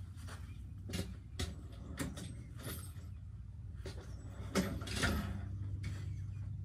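Scattered knocks and clicks of metal work at the front wheel hub as the wheel speed sensor is worked loose, the loudest pair about four and a half seconds in, over a steady low hum.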